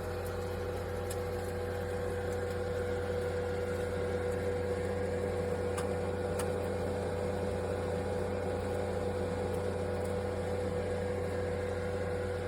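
COMFEE toaster oven air fryer running: a steady convection-fan hum with a constant mid-pitched tone, and a few faint ticks.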